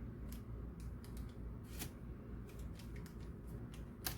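A fork crimping the edges of pie-crust hand pies, its tines clicking lightly against the plate or board at uneven intervals, the sharpest click near the end, over a low steady hum.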